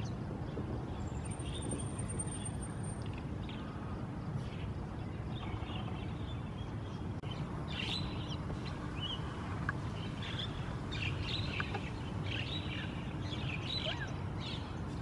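Outdoor ambience: a steady low rumble with many short, high-pitched animal chirps scattered over it, growing busier in the second half.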